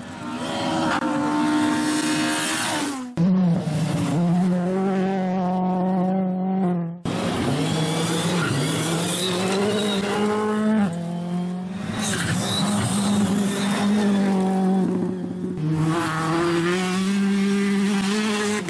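2015 Formula One cars' turbocharged V6 engines running at high revs, the pitch stepping up and down with gear changes. The sound changes abruptly twice, about three and seven seconds in, as one stretch of engine noise gives way to another.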